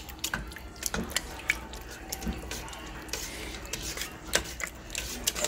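A spoon stirring thick tomato stew in a stainless steel pot, with irregular clicks and scrapes as it knocks against the pot and squishing from the stew.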